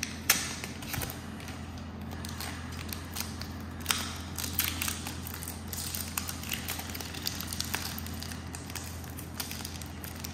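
Crinkling and crackling of a Pokémon card booster pack's plastic and foil packaging as hands pull it out of its cardboard-backed sleeve, with sharp clicks about a third of a second in and about four seconds in. A steady low hum runs underneath.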